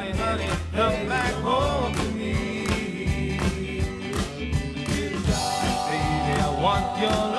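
Doo-wop vocal group singing over a band with a steady drum beat, a long held note sounding through the second half.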